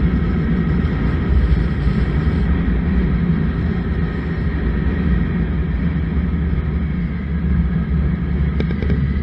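Suzuki Bandit 1200 motorcycle riding at steady road speed: a constant low engine and wind rumble with no change in pace.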